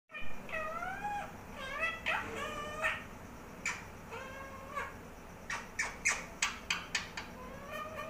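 Indian ringneck parakeet vocalising in its talking voice: several squeaky calls that slide up and down in the first five seconds, then a quick run of short, sharp sounds.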